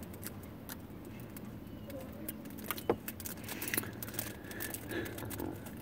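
Small scattered clicks and rustles of small objects being handled inside a car, with a sharper click about three seconds in, over a low steady hum.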